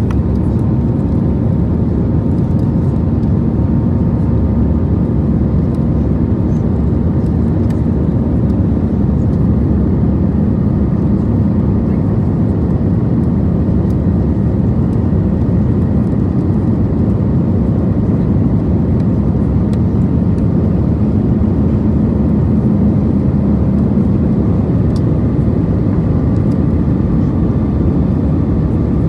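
Steady engine and airflow noise heard inside the cabin of an Airbus A320-214 powered by CFM56-5B engines: a loud, even low rumble with a constant hum, unchanging throughout.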